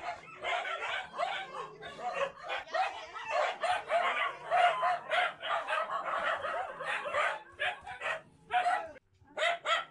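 A large crowd of dogs in a cramped space yipping and barking over one another, many short high calls overlapping several times a second, breaking off briefly near the end.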